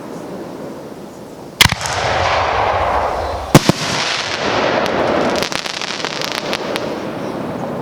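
Fireworks going off: two sharp, loud booms about two seconds apart, each trailed by a long rolling echo and hiss, then a run of scattered crackles.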